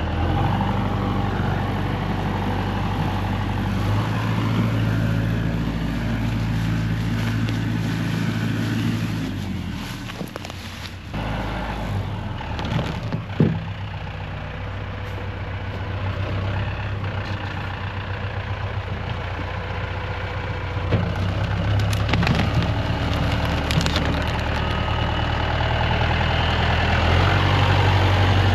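Tractor engine running steadily, easing off about ten seconds in and building up again, louder near the end, with a few sharp knocks as it moves stumps.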